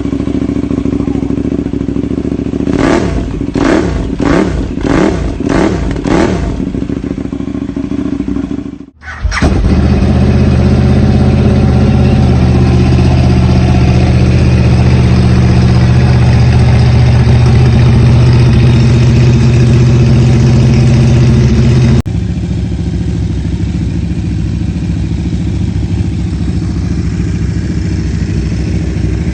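KTM 1190 RC8's V-twin engine idling and revved in about six quick blips, then loud and held at a steady higher engine speed for about twelve seconds, before an abrupt switch back to a steady idle.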